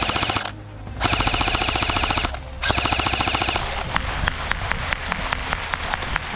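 Airsoft electric guns firing on full auto. Three rapid bursts come in the first three and a half seconds, then a run of separate shots at about four a second.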